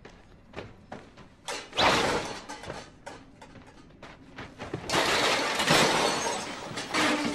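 Crashing and clattering of objects being knocked over and smashed. There are a few sharp knocks, then a loud crash about two seconds in, and a longer, louder crash and clatter from about five to seven seconds in.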